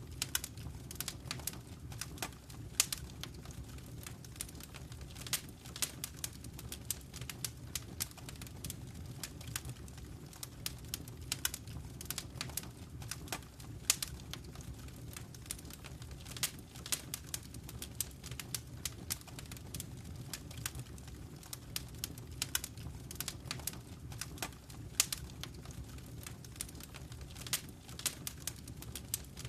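Wood fire crackling in a fireplace: frequent sharp snaps and pops, a few louder ones standing out about 3, 14 and 25 seconds in, over a steady low rumble of the flames.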